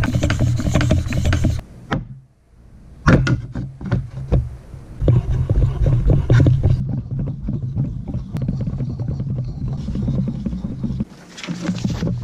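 Axe head's edge being honed on a sharpening stone: quick back-and-forth scraping strokes that stop briefly about two seconds in and again near the end.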